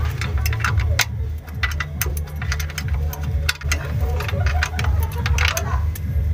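Irregular metal clicks and clinks from a wrench turning the clamp-band nut on an air-brake spring chamber as it is tightened. Under them runs a steady, low, pulsing machine rumble.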